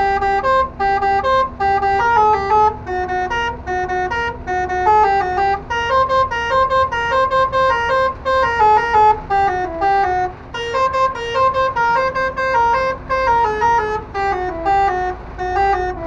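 Truck-mounted six-trumpet telolet air horn, driven by an electronic module, playing a quick tune of short notes that step up and down, with the cab's engine and road rumble underneath.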